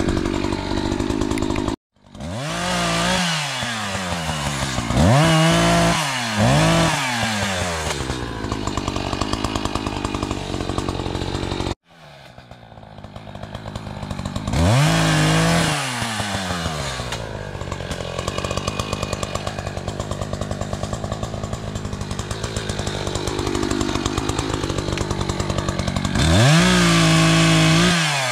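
Gas chainsaw cutting small saplings near the ground, revved up and let back down again and again between stretches of steadier running. The sound breaks off abruptly twice.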